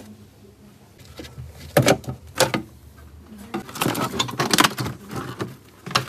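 Plastic snap clips of a refrigerator's freezer evaporator cover popping loose under a flat screwdriver. There are a few sharp clicks about two seconds in, then a longer stretch of plastic cracking and scraping as the foam-backed cover is worked free and pulled out.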